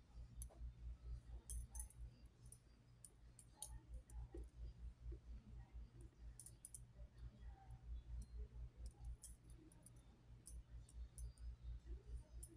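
Scattered faint clicks and clinks of small metal split rings and glass crystal beads being handled by fingers while joining parts of a beaded suncatcher, over a low hum.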